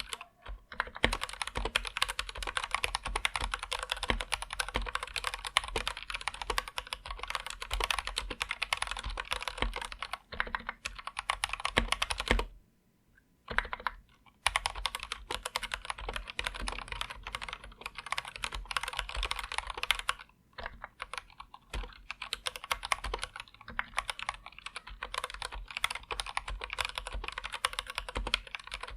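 Continuous typing on an Anne Pro 2 60% mechanical keyboard with Gateron Red linear switches: a dense, uneven stream of keystrokes. The typing stops for about two seconds near the middle, then starts again.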